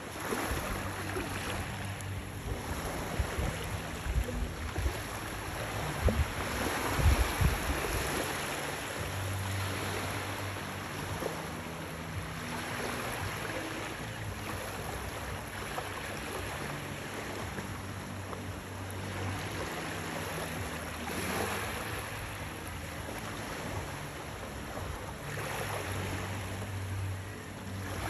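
Small waves washing in the shallows, the wash swelling and fading every few seconds, with wind buffeting the microphone between about four and eight seconds in. A faint low hum runs underneath in the second half.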